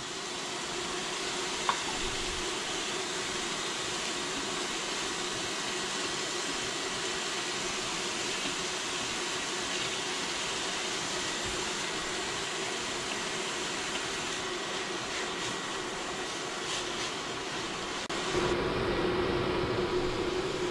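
Steady sizzling hiss of chopped mushrooms, walnuts, onion and garlic frying in olive oil in an enamelled pot on an induction cooktop, with light scrapes of a spatula. Near the end it gets louder and a steady low hum comes in.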